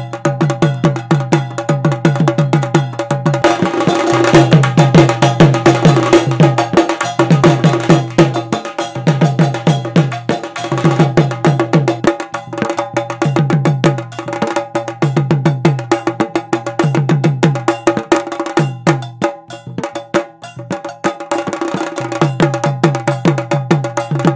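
Percussion-heavy music: fast, evenly repeating hand-drum and wood-block-like strikes over a repeating low pattern, with a few sustained tones behind.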